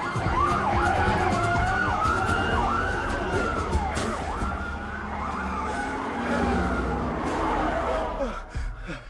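Siren wailing, several tones rising and falling over one another above a low rumble, cutting off about eight and a half seconds in.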